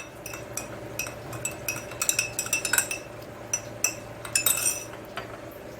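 A spoon clinking against the sides of a cup while stirring honey and hot water into a serving of homemade kada, a spiced cough remedy. The short ringing clinks come in irregular runs, thickest around the middle and again about a second before the end.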